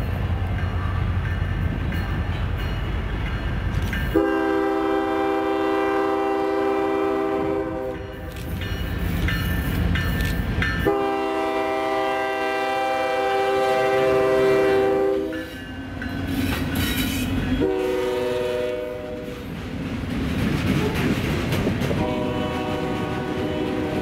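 Canadian National GE ES44DC diesel locomotive passing close by, its engine rumbling, then sounding its multi-note air horn in the grade-crossing pattern: two long blasts, a short one, and a last long one starting near the end. Between blasts the train's wheels clatter as tank cars roll past.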